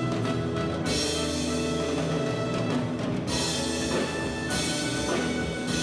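Instrumental music from a stage musical's pit orchestra: held chords with drums and percussion, without singing.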